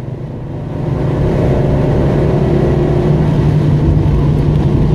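A 1973 Rover P6's 3.5-litre V8 pulling under acceleration, heard from inside the cabin. It gets louder about a second in, rising a little in pitch, then runs on at a steady drone.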